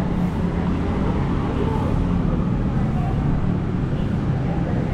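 Street traffic noise: car engines running as cars drive slowly past close by, a steady low rumble.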